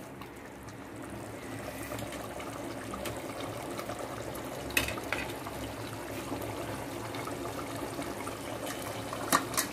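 Meat and spice masala in tomato gravy bubbling and sizzling as it fries in an aluminium pot, a steady bubbling with a couple of sharp clicks, one about five seconds in and one near the end.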